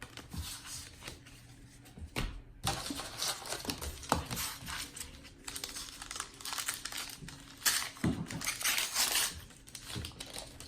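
A thin foil trading-card pack being torn open and its wrapper crinkled, in a run of irregular crackles and rips from a few seconds in until near the end, loudest about eight seconds in.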